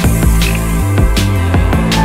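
Background music with regular drum hits and a deep bass line.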